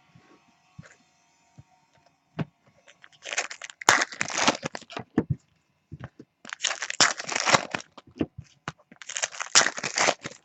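Topps Chrome trading-card pack wrappers being torn open and crinkled by hand, in three bouts of a second or two each, with scattered small clicks between them.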